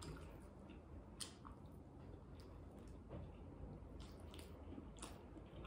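Faint eating sounds: chewing with soft mouth noises, and light squishes and ticks from bare fingers pressing rice and embutido together on a plate, a few scattered clicks a second apart or so.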